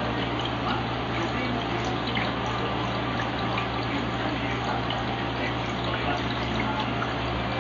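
Aquarium filter running: steady water flow and bubbling over a constant low hum from its pump.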